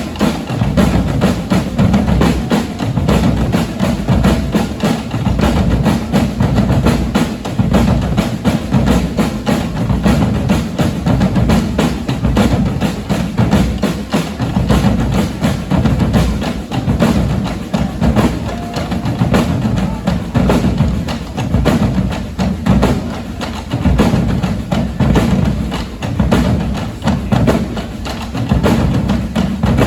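A percussion band playing a continuous, busy drum groove, with deep bass drums under rapid strikes.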